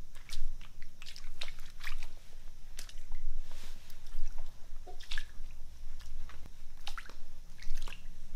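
Footsteps in flip-flops on a flooded concrete floor: irregular wet slaps and squelches as the feet step through shallow standing water.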